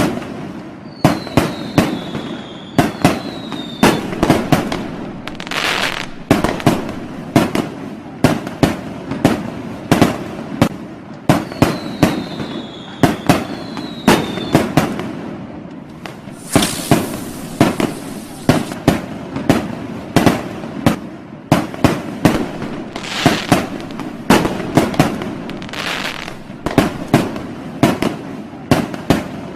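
Fireworks and firecrackers going off in a dense, irregular string of sharp bangs, often several a second. Two whistles fall in pitch early on and again about 12 seconds in, and a bright hissing burst comes about 17 seconds in.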